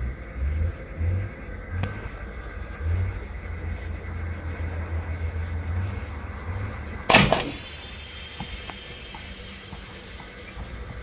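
Homemade compressed-air tennis-ball cannon firing once, a sudden loud blast about seven seconds in, followed by a hiss of escaping air that fades over a few seconds. Low rumbling bumps come before the shot.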